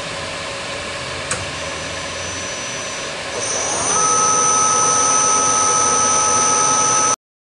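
Milling machine spindle running with an 8mm end mill, cutting flat bottoms into drilled holes in an aluminium dial. About three and a half seconds in, the motor whine rises in pitch as the spindle speeds up and settles into a louder, steady high whine, which cuts off abruptly near the end.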